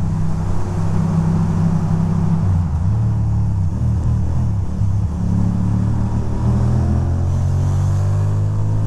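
2006 Ducati Monster 620's air-cooled L-twin engine running under way, heard from the rider's seat over steady road and wind hiss. Its pitch steps down about two and a half seconds in, then from about halfway rises steadily as the bike accelerates.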